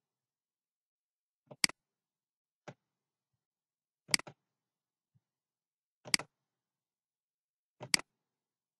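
Five short, sharp clicks of a computer mouse button, one to two seconds apart; the second is fainter than the rest.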